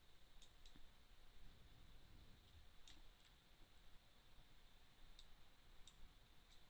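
Faint, scattered clicks of a computer mouse, about seven in all, over a low steady hiss.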